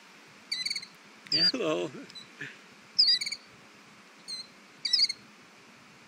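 Killdeer giving sharp, high alarm calls in about six quick bursts of repeated notes. This is a parent bird guarding its newly hatched chicks from a person close by.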